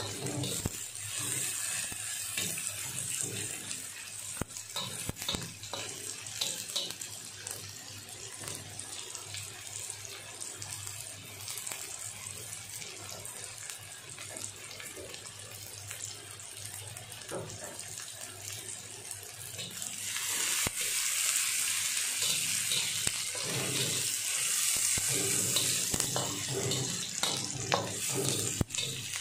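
Chopped ginger, shallots, garlic and bird's-eye chillies sizzling in hot cooking oil, a steady hiss that grows louder about twenty seconds in.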